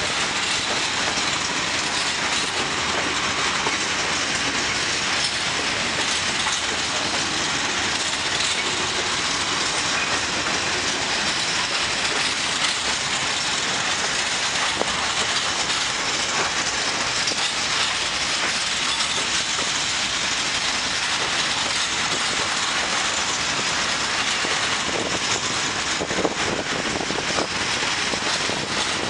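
A long freight train of open-top coal wagons rolling past close by with a steady rolling noise, the wheels clicking over the rail joints. A few louder clacks come near the end.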